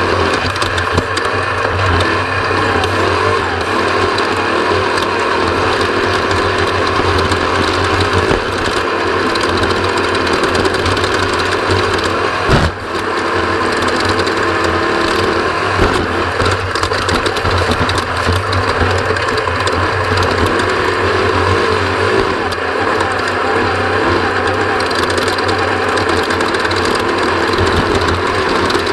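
Onboard sound of an off-road race vehicle driven at speed over desert terrain: a steady engine drone mixed with chassis rattle. A single knock about halfway through briefly breaks the drone.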